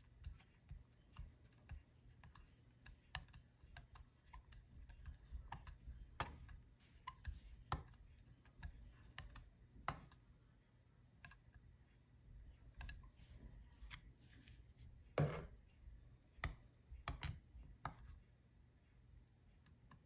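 Faint, scattered clicks and light knocks from a screwdriver turning the mixture screw of a Yamaha Grizzly 660 carburetor and a hand shifting the carburetor body, with one louder knock about fifteen seconds in. The screw is being soft-tightened and backed out to its 4 1/4-turn starting setting.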